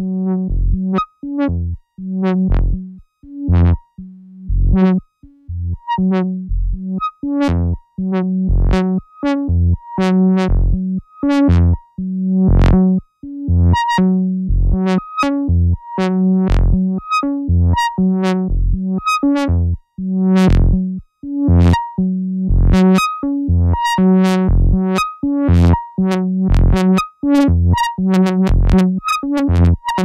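Modular synthesizer playing a step-sequenced pattern of short repeating notes through both channels of a MachineRoom Dual 204D Moog-style filter in stereo. Each channel's cutoff is modulated by its own LFO, so some notes come out dull and others bright as the filters open and close.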